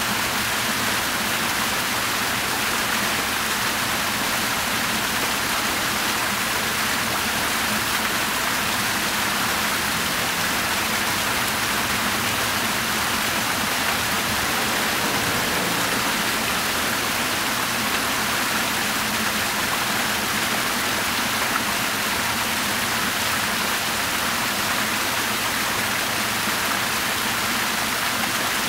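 Fountain water splashing steadily into its basin, falling from a raised bowl and a ring of small arching jets.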